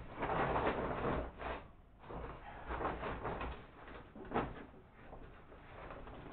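Plastic feed sack rustling and crinkling in several bursts as it is handled and fitted under a grain mill's outlet, with one sharper knock about four seconds in.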